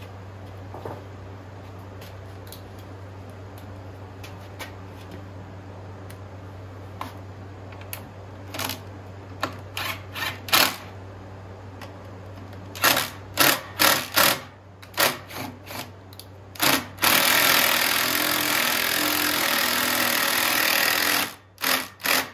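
Small 49cc go-kart engine, revved in short bursts, then held at high revs for about four seconds before dropping off, over a steady low hum.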